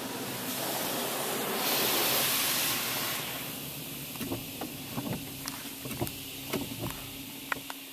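Laserwash touchless car wash spraying pre-soak over the car, heard from inside the car: a hissing spray swells and is loudest for a second or so, then eases off. After that come scattered ticks of water drops on the car over a steady low hum.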